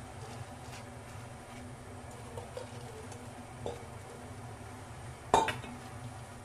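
Cabbage pieces being handled and dropped into a pot, with a few light knocks, then a loud, ringing metallic clank about five seconds in as a stainless steel mixing bowl is set down. A steady low hum runs underneath.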